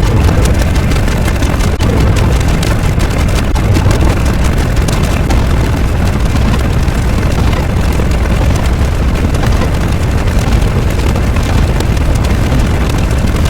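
A loud, steady, dense rumbling noise, heaviest in the low end, with no separate strikes or changes.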